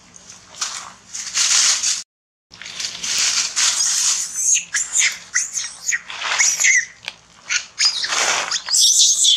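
Dry leaf litter rustling and crunching in repeated bursts, with a brief cut to silence about two seconds in. From midway on, short high-pitched squeaks and chirps join in, loudest near the end.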